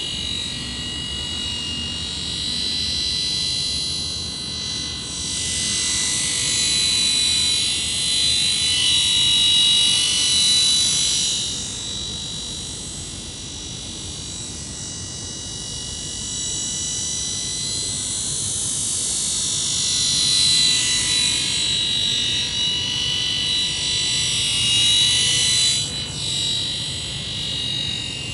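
Helimax Black Hawk RC scale helicopter in flight: a high-pitched whine of several steady tones that swells and fades several times as the model passes nearer and farther.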